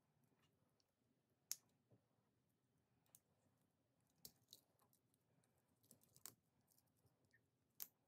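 Faint, irregular clicks of a Wenger Swiss Army knife's blades and tools being opened and snapped shut.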